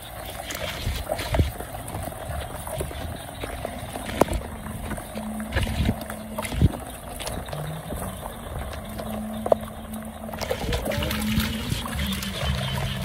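Footsteps sloshing and splashing through shallow water and mud on a wet grassy path, with irregular knocks and splashes.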